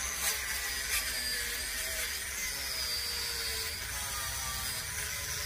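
Electric angle grinder with a wire-brush wheel running against dry deadwood, scouring and carving the wood. Its whine wavers up and down in pitch as the wheel bears on the wood.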